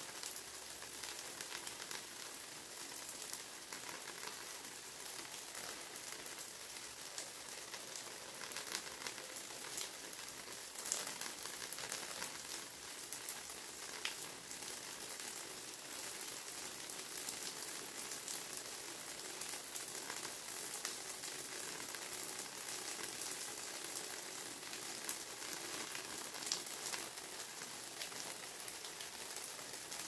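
Water dripping and light rain falling: a steady soft hiss with many small drops ticking, and a few louder drips here and there.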